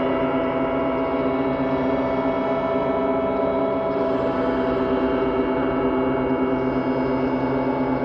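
Dark ambient drone music: a dense, unchanging wash of many held tones with no beat, home-recorded on a four-track cassette.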